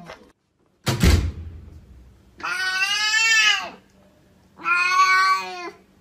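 A sharp thump about a second in, then a cat meowing twice in long drawn-out calls, the first rising and then falling in pitch.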